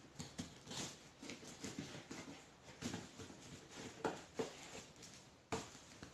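Scissors cutting and scraping at the packing tape on a cardboard box, with crackling tape and handled cardboard in irregular short scrapes and clicks. A sharper knock comes about five and a half seconds in.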